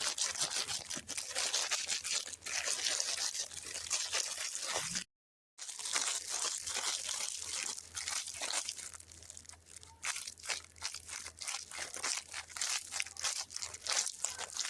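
Crinkling and crackling of sweet packaging being handled and torn open, in a dense run of sharp irregular crackles. The sound cuts out completely for about half a second around five seconds in.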